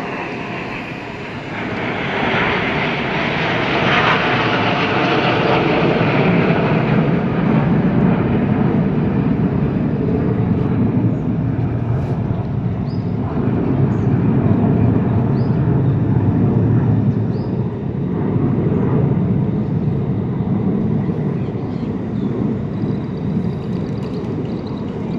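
Jet aircraft of the Surya Kiran aerobatic team, BAE Hawk trainers, flying past at an airshow: a steady jet rush that swells about two seconds in and stays loud.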